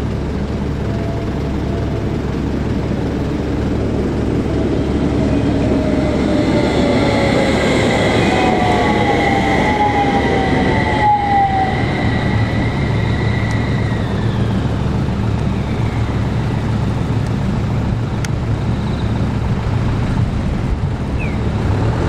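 Utsunomiya LRT HU300 low-floor tram passing over a level crossing. Its motors give a whine with gliding tones, loudest in the middle, over the steady rumble of the running gear.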